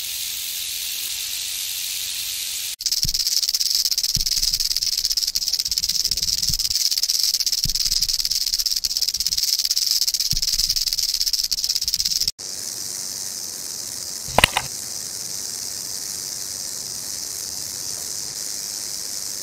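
Rattlesnake rattling: a steady, dry, high buzz in three stretches. The level changes abruptly about 3 and 12 seconds in, and the middle stretch is the loudest. A brief sharp sound comes about 14 seconds in.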